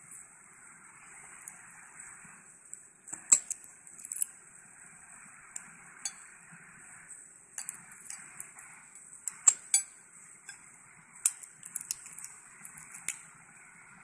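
Irregular sharp metallic clicks and clinks of a Master padlock and its filed-down keys being handled, the loudest a few seconds apart, over a faint steady hiss.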